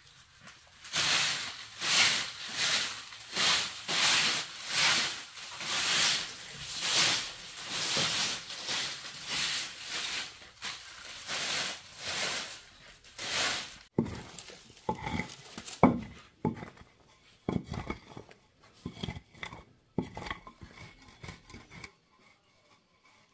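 Straw broom sweeping a packed-dirt floor in brisk, even swishes, about three every two seconds. Partway through the sweeping stops and a run of separate knocks and taps follows.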